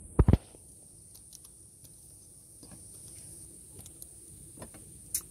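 Two heavy knocks right at the start, then faint scattered clicks and scrapes as a metal Flow Hive key is slid into the slot at the top of the honey frame, with a sharper click near the end.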